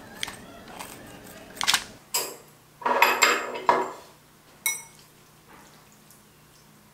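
Kitchen scissors snipping through grilled pork a few times, then metal chopsticks clattering and clinking against a ceramic bowl as noodles are stirred, with one sharp ringing clink near the end.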